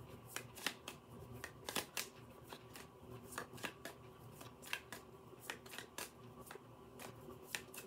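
Tarot deck being shuffled by hand, overhand style: faint, irregular clicks and taps of the cards slipping from hand to hand, two or three a second.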